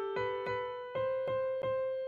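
Background music: a simple electric-piano-like keyboard melody, single notes struck a little under half a second apart, each dying away.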